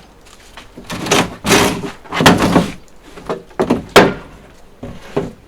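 Wooden boards being handled and set down: a series of irregular knocks and scrapes of wood, the loudest knock about four seconds in.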